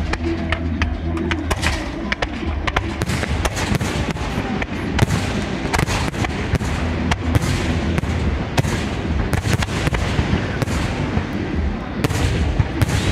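Fireworks display: an irregular run of sharp bangs and crackles from bursting aerial shells and rockets, several a second, over a steady low rumble.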